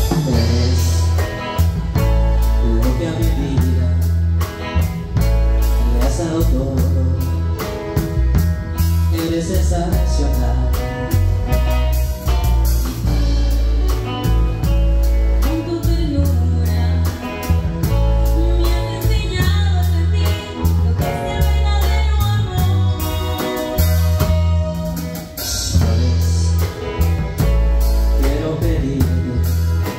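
Live band playing a song: electric guitar, bass guitar, drum kit and congas with a strong, steady bass beat, and a voice singing over them.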